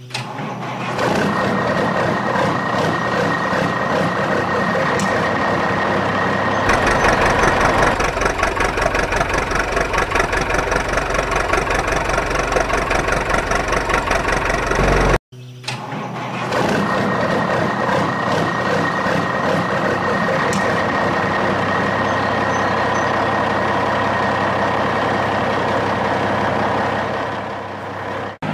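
Truck engine running, with a steady high whine over it. From about seven seconds it grows louder with a rapid pulsing beat. It cuts off abruptly about halfway, then steady running starts again.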